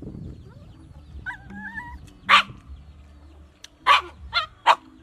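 Dog whining briefly, then giving four short, sharp barks in the second half, the last three in quick succession.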